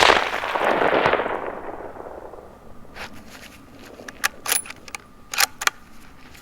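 A rifle shot at the very start, its report rolling and echoing off the hills and fading over about two seconds. It is followed a few seconds later by about half a dozen short, sharp clicks.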